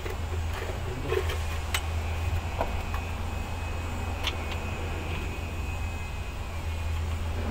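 A few sharp metallic clicks and taps from tools and metal parts being worked at a diesel truck engine's fuel filter and injection pump, over a steady low rumble.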